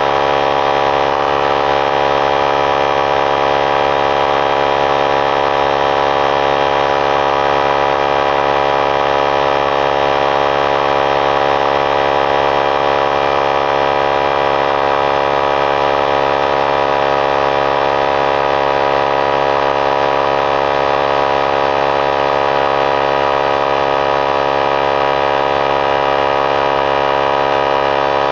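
3-gallon oilless pancake air compressor running steadily and loudly, filling its tank toward the 100 psi cut-out. It makes an even, unbroken drone made of many layered tones.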